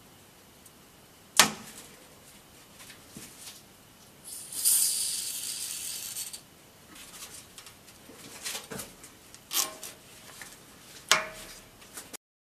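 Rubber exhaust mount being worked onto the metal hanger of a 1999 Mazda 626 by gloved hands and a screwdriver: sharp metal clicks and clinks with a brief ring, the loudest about a second and a half in, and a hiss of about two seconds near the middle.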